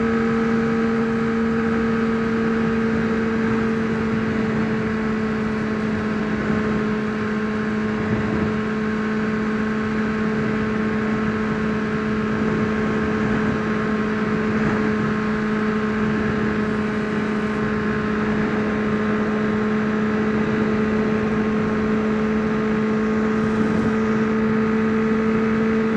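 2003 Honda CBR600RR's inline-four engine holding a steady hum at constant cruising speed, with wind rushing over the helmet camera's microphone.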